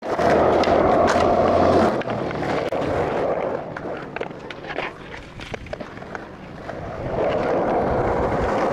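Skateboard wheels rolling on concrete, a loud steady rumble for the first two seconds that returns near the end. In between, a quieter stretch with scattered sharp clicks and clacks of the board.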